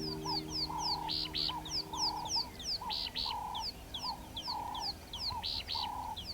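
Birds calling: quick, repeated high chirps that slide downward, about four a second, with louder paired notes every couple of seconds and a lower repeated note, over low sustained tones.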